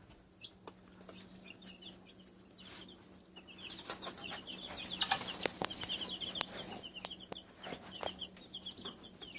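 Chicks peeping: a fast, continuous stream of short, high cheeps, with a few clicks among them.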